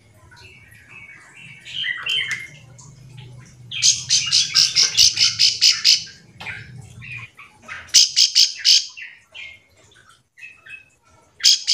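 Ciblek sawah, a small prinia, calling: a few soft chirps, then rapid trills of sharp, high notes at about eight a second, one long trill about four seconds in, a shorter one near eight seconds, and another starting at the very end.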